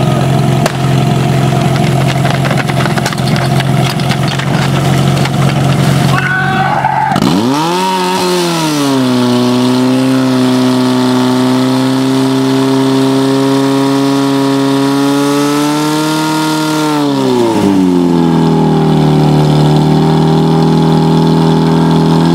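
Portable fire pump engine running steadily, then revved up sharply about seven seconds in and held at high speed while it drives water out through the attack hoses. Around seventeen seconds in its speed falls, and it settles at a lower steady note.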